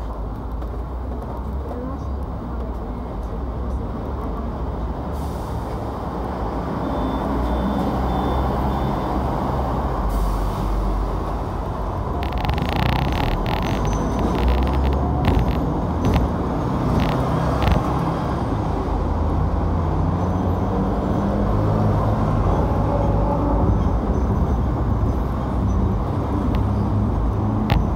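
Hong Kong double-decker electric tram running along its track, heard from the upper deck: a steady low rumble that grows louder over the first several seconds as it pulls away. About halfway through comes a run of sharp clicks and knocks.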